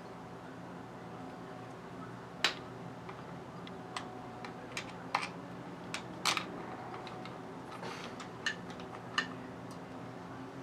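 Scattered light clicks and taps of hand tools and bolts on metal while a Honda GX100 carburetor is bolted back together. There are about a dozen sharp clicks, the loudest about two and a half seconds in and again around six seconds in, over a faint steady hum.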